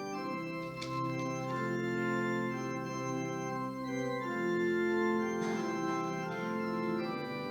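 Organ playing a hymn introduction, with held chords that change every second or so and no singing yet.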